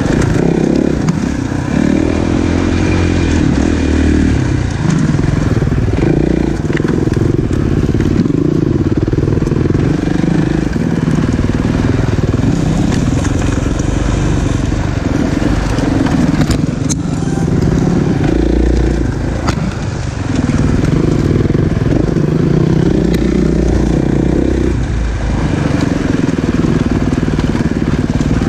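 Dirt bike engine running hard on a trail, revving up and falling back again and again as the throttle is worked, with a few sharp clicks along the way.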